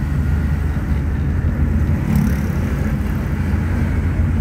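Steady low rumble of a car's engine and tyres heard from inside the cabin while driving slowly, with a brief hiss about two seconds in.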